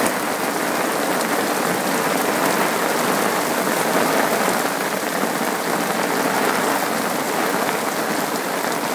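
Heavy thunderstorm rain pouring onto a lake's surface and the muddy bank, a steady, dense hiss.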